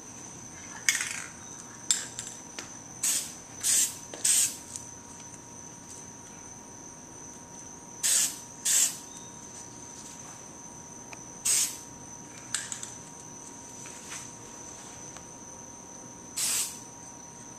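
Aerosol spray-paint can sprayed in short bursts of hiss, each about half a second, several in a row with pauses between, as paint is sprayed over a leaf stencil. A couple of sharp clicks come near the start.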